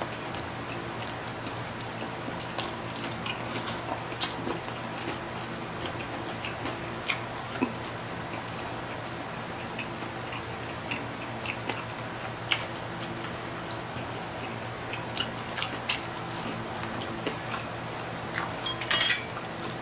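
Mouth-level eating sounds of people chewing crispy pork knuckle and noodles by hand: scattered wet clicks and smacks over a steady low hum, with a louder burst of clicks near the end.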